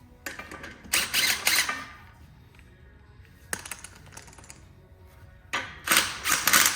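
Ratchet wrench clicking on a truck's wheel nuts in two bursts, one near the start and one near the end, with a single metal clack in between.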